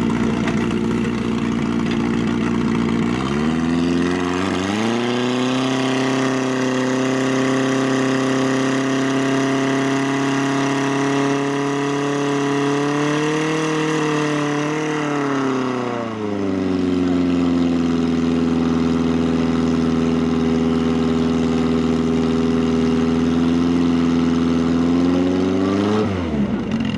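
Portable fire pump's engine idling, then revved up sharply about three seconds in and held at high speed. It eases back to a slightly lower steady speed about halfway through, and its revs drop away steeply near the end.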